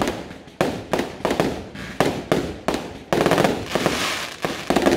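Aerial firework shells bursting in a quick string of sharp bangs, each trailing off, with a dense, rapid crackle of reports about three seconds in.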